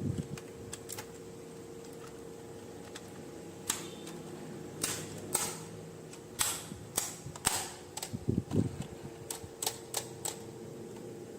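Plastic toy parts and packaging being handled: a run of sharp clicks and short crinkling scrapes, with a low thud about two-thirds of the way in, over a faint steady hum.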